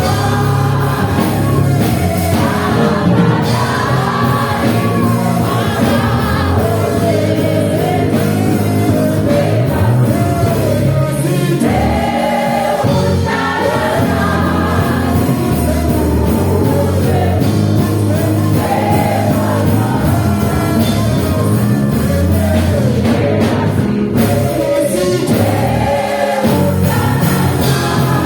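Live gospel worship music: several singers singing together over a band with bass and drums.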